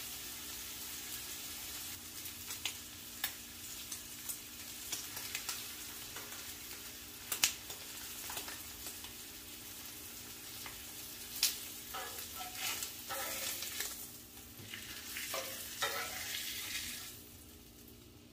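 Ribeye steak sizzling steadily as it sears on a Blackstone flat-top griddle. Sharp clicks and short scrapes of metal tongs and a spatula against the steel top come through every few seconds. The sizzle dies down near the end as the steak is lifted off.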